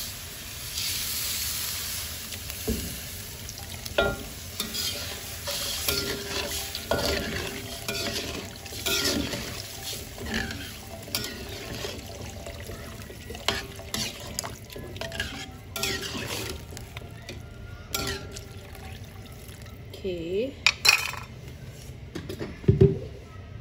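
Water poured into a hot aluminium wok of fried chicken, hissing and sizzling for the first few seconds. A metal spatula then stirs and scrapes against the wok with scattered clicks and knocks.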